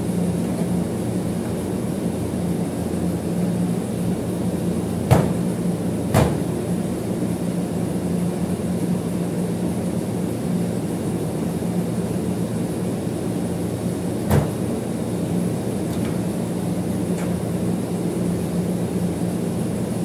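Steady machinery hum with a low drone and a faint high whine, broken by three sharp knocks of a sheet-metal air-conditioner panel being handled: two about a second apart around five seconds in, and one more about fourteen seconds in.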